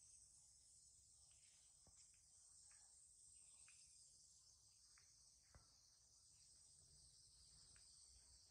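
Near silence with faint, steady high-pitched insect chirring and a few faint, separate clicks.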